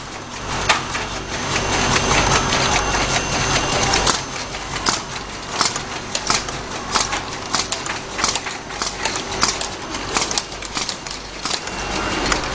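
Automatic labeling machine running: a steady motor and conveyor hum with frequent irregular clicks and clatter as small gum tubes pass through the label applicator and hold-down belt.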